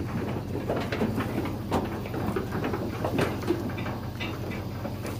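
Sheep and pigs moving about in a stock trailer: irregular light knocks and scuffles of hooves on the trailer's wooden floor, over a low steady hum.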